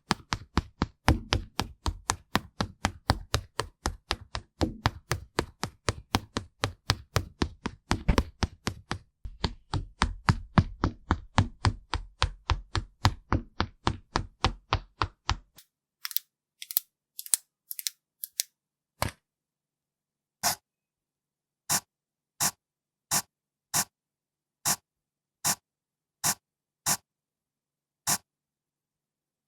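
ASMR tapping sound effect: a fast run of sharp taps, about four a second, then, about halfway through, slower single clicks roughly once a second with silence between.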